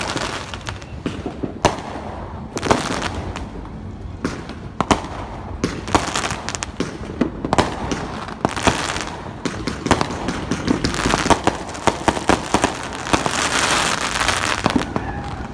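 Fireworks going off: many separate bangs and pops, thickening about ten seconds in into a dense stretch of crackling as a glittering shell bursts.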